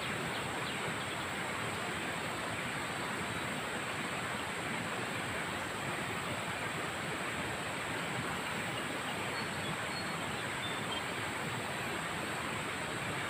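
Steady rushing of a jungle river, with a steady high insect drone from the forest above it and a few faint bird chirps near the end.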